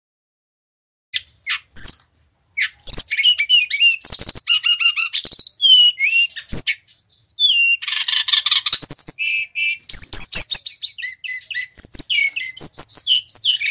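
Male brown-chested jungle flycatcher (Cyornis brunneatus) singing: after a few short notes comes a fast, varied run of clear whistles, slurred notes and quick rattles that carries on without a break, a song said to be full of mimicked phrases (isian).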